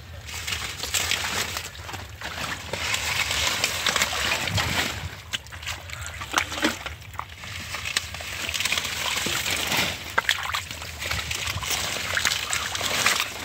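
Hands splashing and squelching in shallow muddy water, in spells, with a few sharp clicks and the rustle of water hyacinth plants being pulled.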